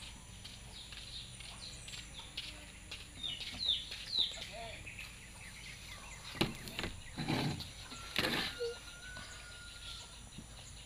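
Small birds chirping, a string of short falling chirps through the first half. From about six seconds in, a few seconds of paper rustling and handling as a sketch pad is lifted and turned round.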